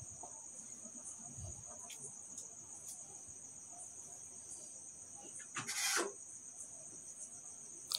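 Faint, steady, high-pitched insect trill running throughout, with a brief rustle about six seconds in.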